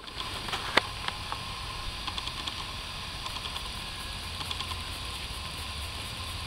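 A few light clicks and taps from hand tools working at a stone grave marker, with one sharper knock about a second in, over a steady outdoor hiss.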